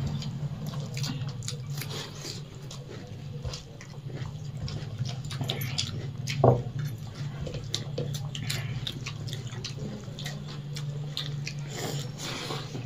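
Close-up eating sounds of rice and egg curry eaten by hand: wet chewing and lip smacking with the squish of rice being mixed with the fingers, as a scatter of small clicks and smacks over a low steady hum. One louder thump about six and a half seconds in.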